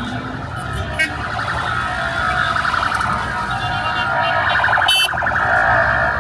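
An electronic siren warbling rapidly, growing louder from about a second in, over the rumble of street traffic.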